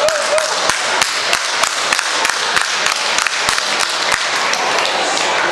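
Ringside spectators clapping: a few sharp claps a second over a steady crowd hubbub.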